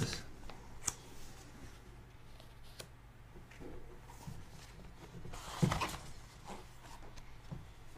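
Paper and books being handled at a desk: a few faint clicks and soft rustles, then a louder cluster of rustling and light knocks about five and a half seconds in as a book is picked up and opened, over a faint steady room hum.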